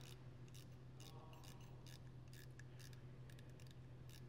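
Faint clicks, about three a second and unevenly spaced, from a hand screwdriver working loose a handle screw on a soil pick, over a steady low hum.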